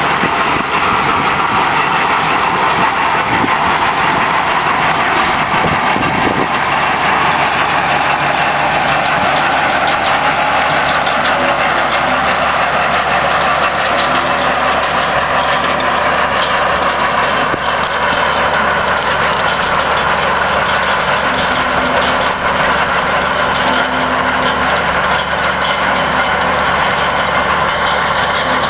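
Potato-harvesting farm machinery running steadily: a loud, unbroken engine and machinery din.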